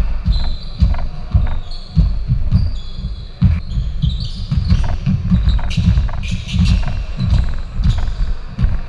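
Basketball bouncing and players' feet thudding on a hardwood gym floor, several irregular low thuds a second, with short high sneaker squeaks now and then.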